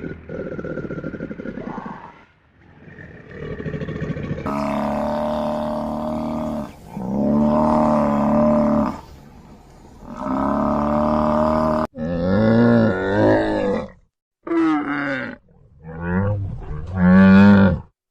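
A series of large-animal calls: rough, noisy growls first, then three long, steady, pitched calls of about two seconds each, and after a sudden cut about twelve seconds in, several shorter calls that waver in pitch.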